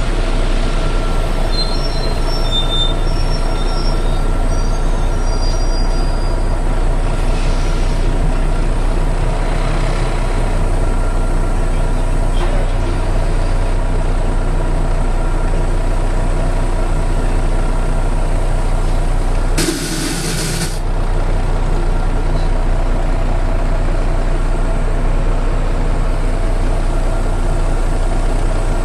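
Volvo B7TL double-decker bus's six-cylinder diesel engine running steadily under way, heard from inside the bus, with the loud suction noise this bus is known for. About two-thirds of the way in comes a sharp hiss of air lasting about a second.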